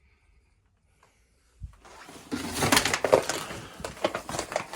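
Near silence, then a single low thump about a second and a half in, followed by a dense run of crunches and knocks of footsteps moving over a debris-strewn floor.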